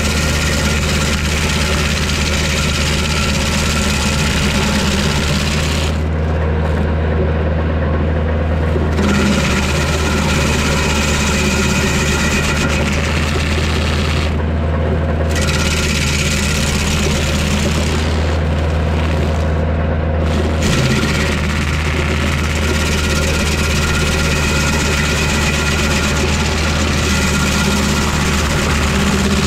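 Kioti DK40se tractor's diesel engine running steadily, driving a Woodland Mills WG24 PTO stump grinder as its cutter wheel grinds a red pine stump and throws chips. The higher cutting noise falls away briefly three times, around six to nine seconds in, near fifteen seconds and around eighteen to twenty seconds.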